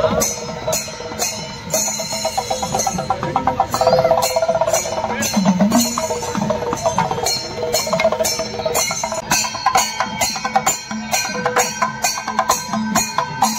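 Temple festival percussion music: regular stick-on-drum strikes and cymbal clashes over a sustained melody line. The strikes come faster about nine seconds in.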